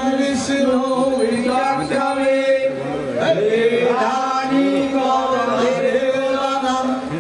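Male voices chanting mantras in long, held tones with little change in pitch, as at a Hindu yajna fire ritual.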